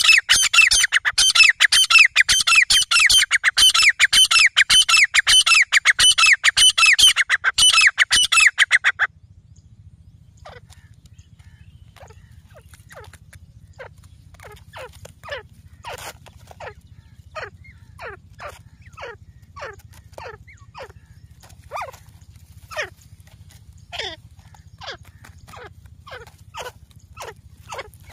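Grey francolins calling: a loud, rapid chorus of repeated shrill notes that cuts off abruptly about nine seconds in. After that, quieter single notes sliding downward come about once a second over a low steady hum.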